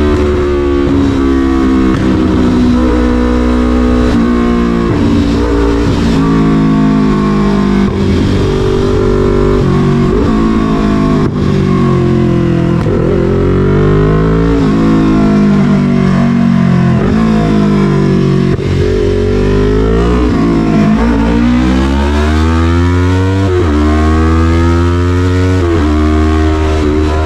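Loud exhaust note of a Yamaha MT-03's 321 cc parallel-twin engine through an SC-Project full CRT carbon exhaust, revving up and falling back again and again as the bike accelerates and slows, with a long climb in pitch near the end.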